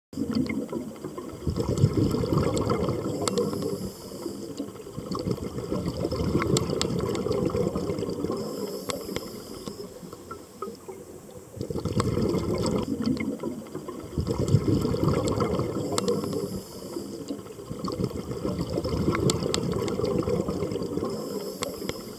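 Underwater bubbling and gurgling water, rising and falling in level in slow swells, with scattered faint clicks.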